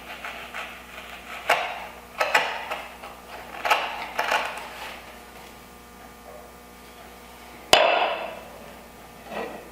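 Chisel paring and scraping end grain in the pin sockets of a dovetail joint, several short strokes, then one sharp knock near the end.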